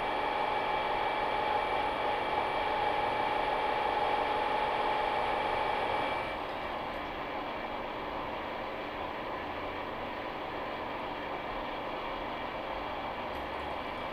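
Milling machine with an angle head drilling into the end of a forged truck tie rod: the spindle and drill run steadily with a whine over an even noise. About six seconds in, the sound drops a little quieter and the higher tones fall away.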